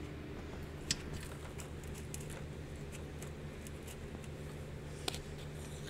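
Light clicks and taps of hands handling an opened LCD monitor's metal chassis and circuit-board connectors, with two sharper clicks about a second in and near the end, over a steady low hum.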